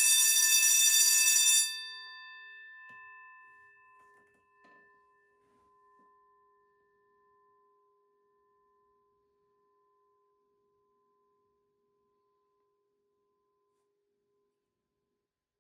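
A Jenkins 8-inch vibrating electric bell rings continuously on 24 volts and stops suddenly about a second and a half in. Its shell then keeps ringing with a long, fading tone that dies away over about twelve seconds, with a few faint knocks along the way.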